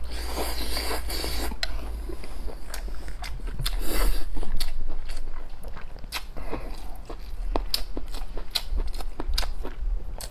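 Close-miked eating of beef tripe (maodu) in chili oil sauce: wet slurps as strands are sucked in, the loudest about four seconds in, and rapid crisp crunching clicks of chewing the rubbery tripe.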